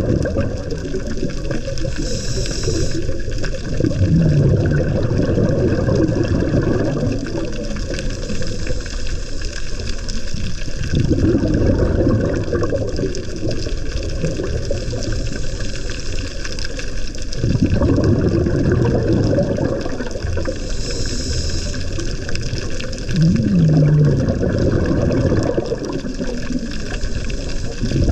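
Scuba diver breathing through a regulator, heard underwater: a low rumble of exhaled bubbles every several seconds, about five breaths in all. A short hiss of inhaled air comes twice.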